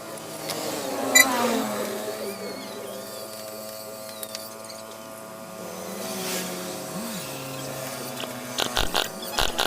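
Rebuilt Yamaha F1ZR two-stroke single-cylinder engine running, blipped up and back down about a second in, then holding a steady idle. A quick series of sharp knocks or clicks comes near the end.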